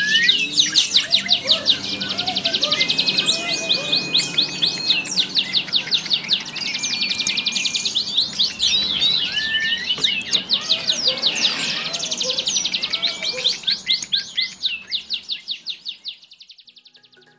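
Lovebirds chattering: rapid runs of high, sharp chirps that fade out near the end.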